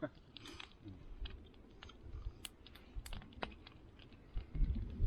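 A person chewing food with scattered small crunchy clicks, faint against a low background rumble.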